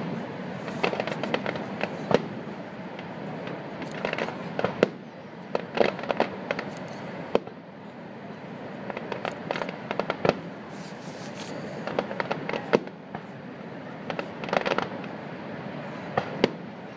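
Aerial fireworks shells bursting: sharp bangs at irregular intervals a second or a few seconds apart, with runs of rapid crackling between them.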